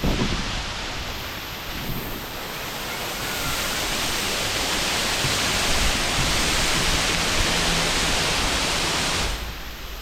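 Radau Waterfall's water rushing steadily, growing louder a few seconds in and falling off sharply near the end.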